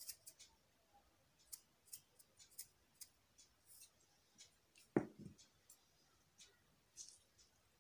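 Faint, sharp ticks and clicks of a small plastic shaker being shaken over a plate of rice, with one louder dull knock about five seconds in.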